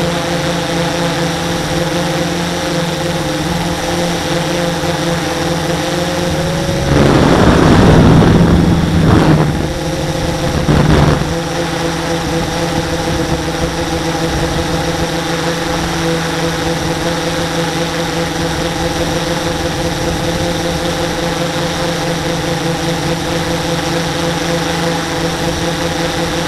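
Electric motor and propeller of a radio-controlled model plane droning at a steady pitch, heard from the plane's onboard camera. Two loud rushes of wind noise cover it briefly, one starting about seven seconds in and lasting a couple of seconds, the other shorter at about eleven seconds.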